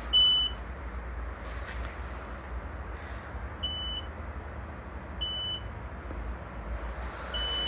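Short, high-pitched electronic beeps from a small buzzer: three single beeps a couple of seconds apart, the first the loudest. Near the end a fourth beep starts a quicker series. A steady low background noise runs underneath.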